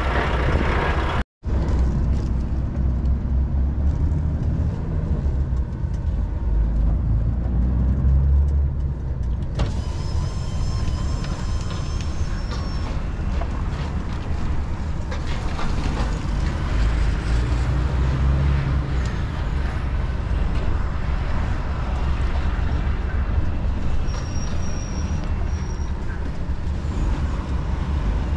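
DAF XF 480 truck's six-cylinder diesel engine running at low speed, heard from inside the cab as the truck rolls slowly, a deep rumble that swells and eases. It comes in after a sharp cut about a second in.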